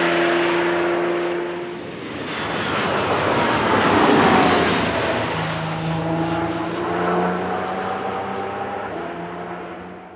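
Audi R18 e-tron quattro LMP1 race car's turbo-diesel V6 passing at speed. It swells to its loudest about four seconds in, with a whine that drops in pitch as it goes by. Then its engine note climbs gently as it pulls away and fades.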